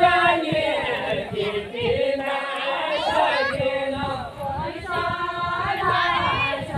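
A group of men and women singing a Kumaoni jhoda-chachari folk song together, voices only, as they dance in a linked circle.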